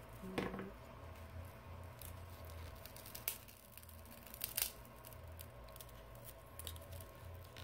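Faint crackling of adhesive and cracked glass as a Samsung Galaxy S7 Edge's screen is pried up off its metal frame, with scattered small clicks and two sharper clicks in the middle.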